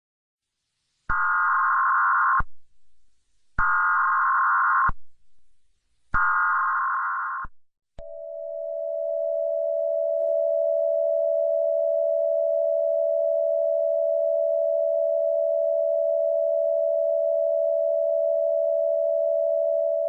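Emergency Alert System test: three short buzzing data bursts of SAME header tones, about two and a half seconds apart, then a long steady attention tone.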